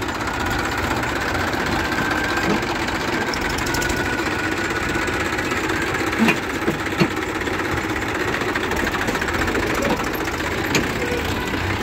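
Tractor diesel engine running steadily, with a few sharp metallic knocks about six and seven seconds in and again near the end.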